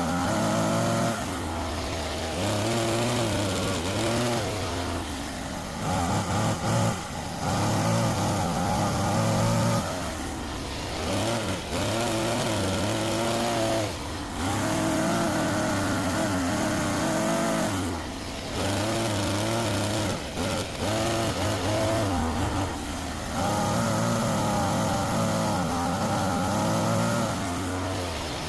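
Homemade RC excavator's motors whining, the pitch wavering and the sound coming and going in spells of a few seconds as it is worked.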